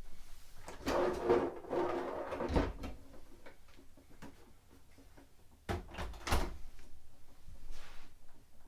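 Storage cabinet doors or drawers opening and closing, with handling rattles, then a cluster of knocks about six seconds in.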